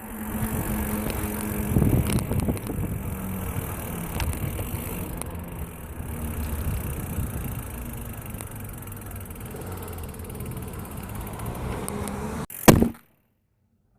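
Wind rushing over the microphone and tyre rumble while riding a mountain bike on the road. A sharp knock comes near the end, and then the sound cuts off abruptly.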